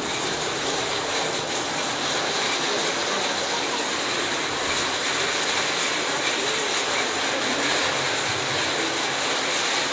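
Heavy rain falling on a tin roof: a steady, even rush of noise.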